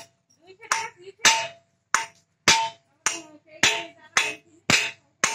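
Hammer blows on a power tiller's metal bearing housing, a sharp clang with a short ring about twice a second, some eight or nine strikes, driving a new bearing into its seat.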